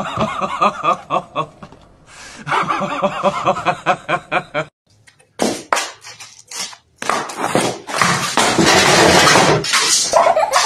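A man laughing in rapid repeated bursts. About five seconds in this cuts off, followed by several sharp knocks and a few seconds of loud scraping, clattering noise.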